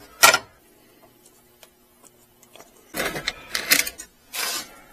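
Fiberglass wire-pulling rod and wires scraping and clicking against the plastic dashboard as they are fed through: a sharp click right at the start, a few faint ticks, then a couple of seconds of scraping and rustling.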